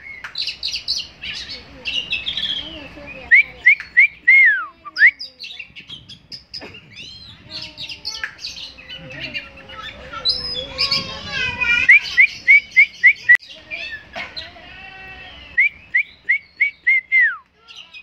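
Oriental magpie-robin (kacer) singing a varied song of quick chirps, trills and whistles. Several times it breaks into a run of five or six loud, quick, down-slurred whistled notes.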